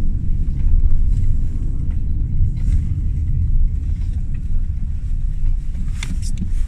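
Steady low rumble of a car driving on a snowy road, heard from inside the cabin. A brief sharp click comes about six seconds in.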